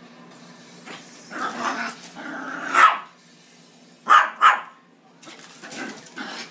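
Small white dog barking in fright, several separate barks with the two loudest close together about four seconds in.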